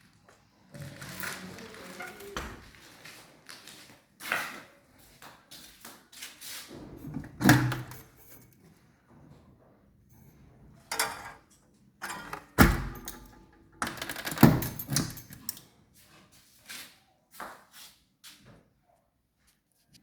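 Irregular knocks, taps and scraping handling sounds, with a few louder thuds spread through and short quiet gaps between them.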